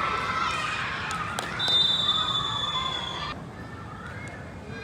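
Players shouting and a couple of sharp ball knocks, then a single whistle blast lasting about a second and a half that cuts off suddenly.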